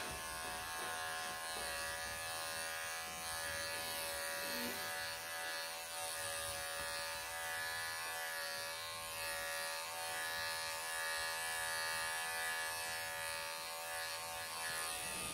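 Wahl cordless pet clippers running with a steady electric buzz as the blade is drawn through a Persian cat's body coat, shaving it short.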